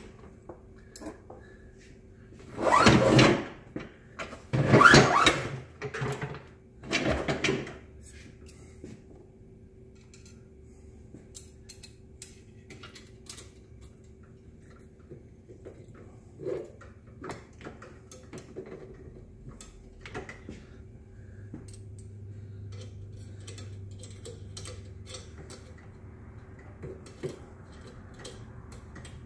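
Three loud scraping, sliding noises of about a second each in the first eight seconds, then scattered light clicks and knocks, over a steady low hum: downhole tool parts handled on a workbench.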